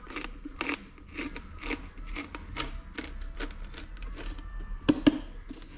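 Aluminium foil heat-shield tape on an ATV exhaust pipe crinkling and scraping as it is rubbed down with a screwdriver, in quick strokes a few times a second. Two sharp knocks come about five seconds in.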